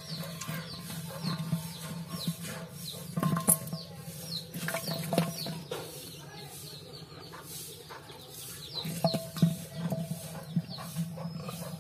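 Birds chirping: many short falling chirps at irregular intervals over a steady low hum, with a few sharp knocks.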